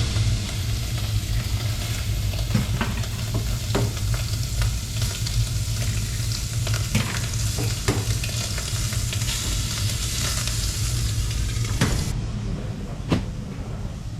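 Bacon and eggs frying in a pan: a dense, steady sizzle dotted with sharp clicks and pops, which cuts off suddenly about twelve seconds in.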